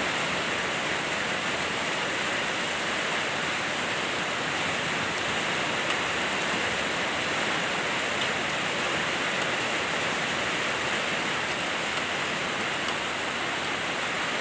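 Heavy rain falling steadily, a constant even hiss with a few small ticks of drops hitting something.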